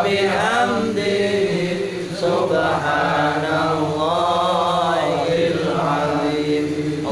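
Men chanting Islamic dhikr together in Arabic, a slow melodic chant with long, drawn-out phrases.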